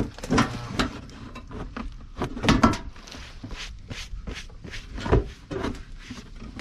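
Irregular clinks, knocks and rattles of a loose steel truck fender being shifted into place while a bolt is started, with the sharpest knocks at the start, about two and a half seconds in and about five seconds in.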